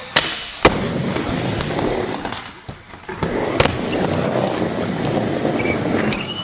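Skateboard wheels rolling over a smooth skatepark floor, with sharp clacks of the board popping and landing: two close together near the start and a couple more around three and a half seconds in.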